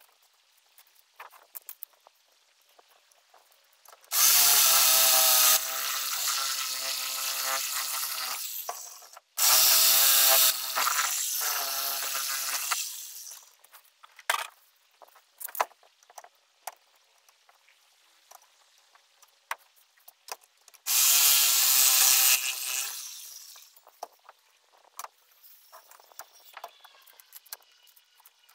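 Handheld electric power tool run in three bursts of a few seconds each, about four seconds in, about nine seconds in and about twenty-one seconds in; each starts loudest and winds down with a falling whine. Light knocks and scrapes fill the gaps between bursts.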